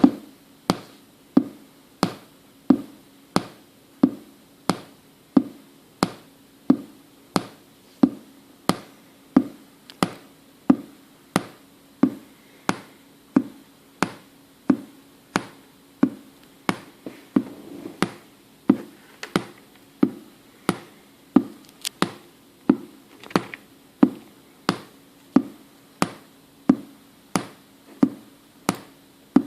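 Anker A3143 Bluetooth speaker giving out a steady train of sharp pops, about three every two seconds, each with a brief low hum. The repeating pop is a fault that makes the speaker unusable.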